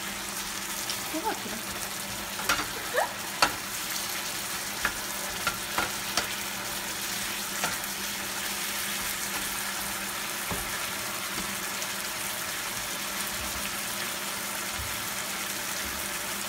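Shrimp in coconut sauce sizzling steadily in a frying pan, with a spoon clicking and scraping against the pan as it is stirred, mostly in the first half.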